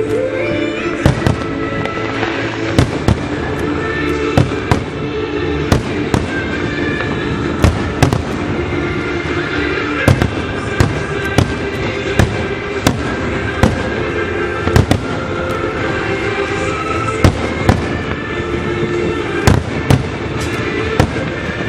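Aerial firework shells bursting overhead in an irregular run of sharp bangs, about one or two a second, over steady background music.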